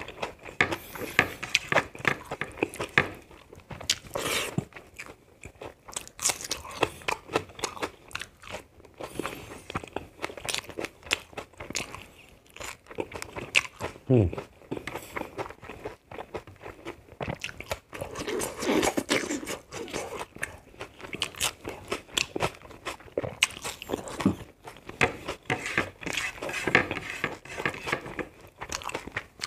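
Close-miked chewing of hand-eaten rice and fried pork sausage: irregular wet mouth clicks and crunches, with a brief low falling mouth sound about halfway through.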